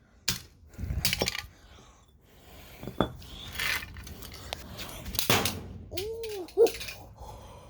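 Hard plastic chargers and adapters being smashed: a series of sharp knocks and clattering hits, about five spread over several seconds, with a short rising-then-falling tone about six seconds in.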